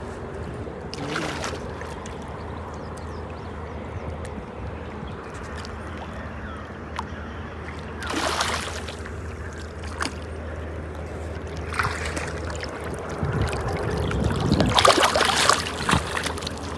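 Water sloshing and splashing in a few short swells over a steady low hum, the loudest swell near the end.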